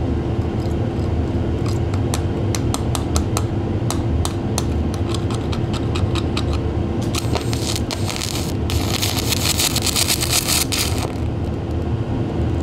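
Stick (MMA) arc welding on aluminium sheet with an aluminium electrode: the arc crackles and spits in scattered clicks, then catches and burns with a dense hissing crackle for about four seconds before dying out again, over a steady hum. The arc is striking only fitfully, a sign that the setting is not yet right.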